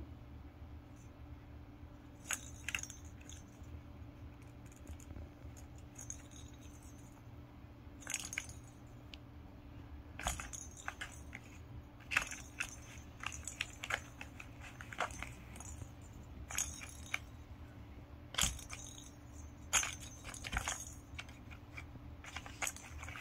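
Toy bell ball jingling in short, irregular bursts inside a Leisuremix Magic Organ cardboard accordion scratcher as a cat bats at it. The bursts come more often in the second half.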